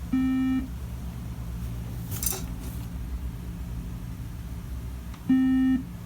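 Late-2015 iMac's startup beep code: a single half-second electronic beep, then the same beep again about five seconds later. One beep repeating every five seconds is Apple's code for no RAM detected. A short rustle comes between the two beeps.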